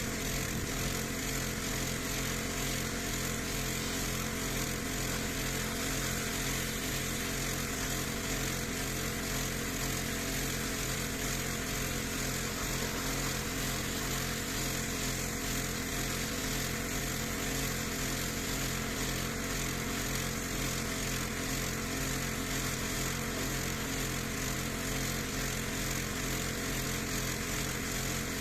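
Pressure washer running steadily with the water jet hissing against paving.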